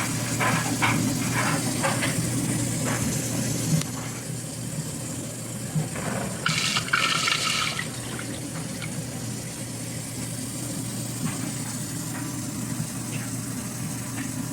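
COMFEE countertop dishwasher running: a steady motor hum under water spraying and sloshing, with a brief louder splash about halfway through.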